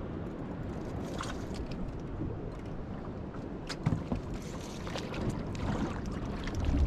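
Wind and water noise on a small open boat, a steady low rush, broken by a few short sharp knocks or splashes, the loudest about four seconds in.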